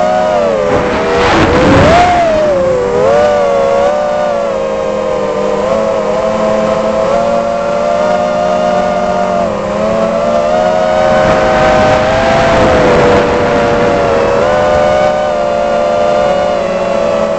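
Armattan Rooster 6-inch FPV quadcopter's 2300 KV brushless motors and propellers whining, heard from the onboard camera, the pitch rising and falling with throttle. A rush of wind on the microphone swells about a second in and again around eleven to thirteen seconds in.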